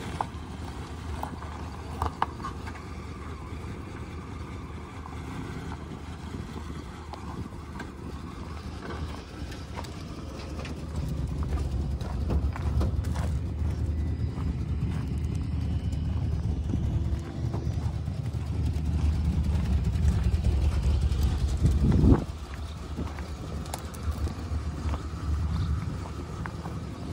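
Footsteps crunching on gravel while wind rumbles on the microphone. The wind grows stronger through the middle, and a sharp knock about two-thirds of the way in is followed by a sudden drop in the rumble.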